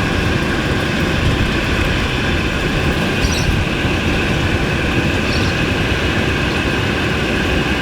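BMW E36 318 idling, with its air-conditioning fan blowing a steady rush of air over the low rumble of the engine.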